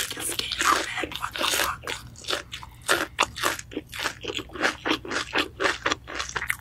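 Close-miked chewing of crispy fried chicken, the coating crunching in a fast, regular run of about four crunches a second.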